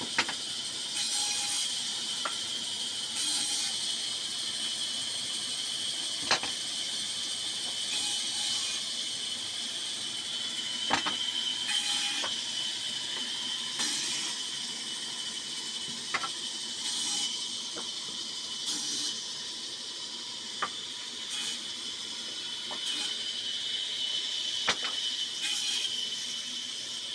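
Band saw running with a steady high whine, its cutting noise swelling every couple of seconds as wooden blocks are fed through the blade. Sharp knocks of wooden pieces dropped or tossed down come at intervals of several seconds.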